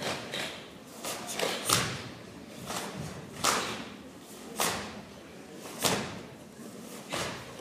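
Sharp snaps of karate uniforms and thuds of bare feet on the mat as three performers strike and step together through Matsumura Bassai kata, each move in unison. About eight cracks come at irregular intervals of roughly a second, echoing in the hall.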